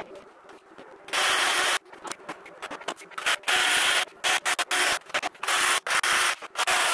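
Black & Decker Matrix cordless drill boring holes into the pedalboard's mahogany side, run in short bursts that start and stop sharply: a longer run about a second in, then many brief ones.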